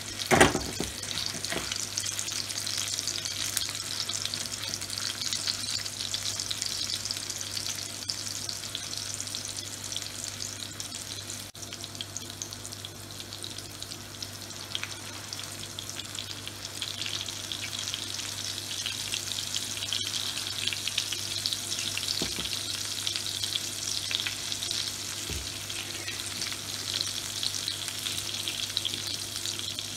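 Chapli kebab patties sizzling and crackling in shallow oil on a flat griddle pan, with a sharp knock about half a second in and a low steady hum underneath.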